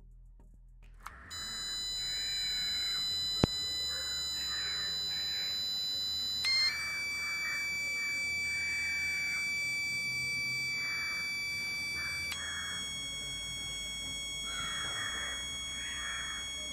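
Steady, buzzy electronic tone from a small speaker driven by a Raspberry Pi Pico tone generator. Its pitch steps to a new note twice, about 6 and 12 seconds in, and there is a sharp click about 3.5 seconds in.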